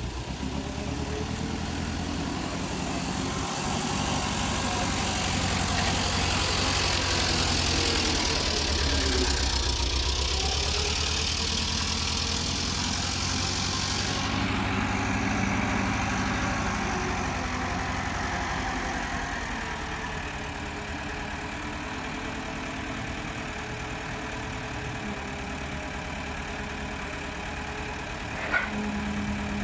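A vehicle engine running steadily at a low, even speed. It grows a little louder for a while with a hiss over it that cuts off abruptly about halfway through, and there is a single sharp click near the end.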